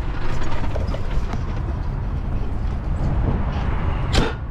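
Low steady rumble of a semi truck's diesel engine running, with one sharp clunk near the end.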